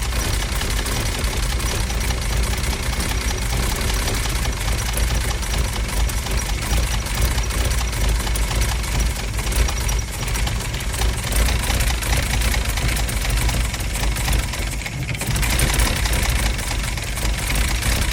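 Mercedes-Benz W114 280CE straight-six engine idling roughly and unevenly, its level wavering, somewhat louder for a few seconds past the middle.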